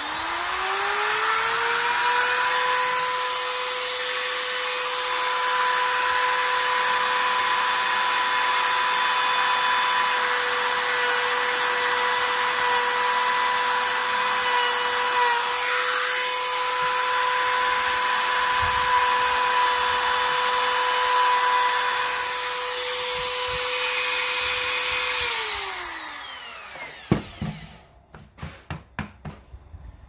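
Compact trim router with a round-nose bit spinning up to a steady high whine and cutting a groove, the cutting noise running under the whine for about 25 seconds. Near the end the motor winds down, falling in pitch, and a few knocks follow as the router is set down.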